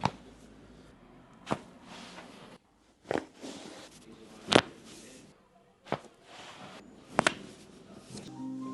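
Joints cracking under chiropractic spinal adjustments: about six sharp pops, roughly one every second and a half, the loudest about four and a half seconds in and a quick double pop near the end.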